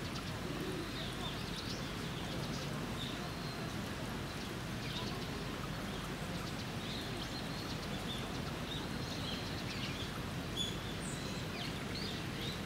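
Steady outdoor background hum with small birds chirping now and then, in short high calls.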